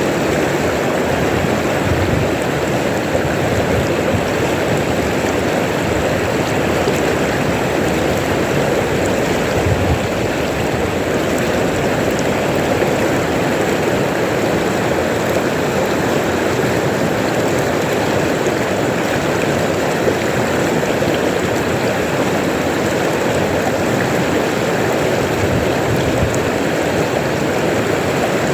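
River water rushing over stones, a loud steady rush.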